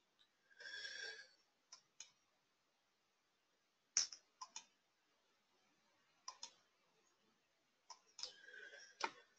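Quiet computer mouse clicks, about ten of them and several in quick pairs, as chart windows are arranged and zoomed on screen. Two short soft rustling bursts come about a second in and again near the end.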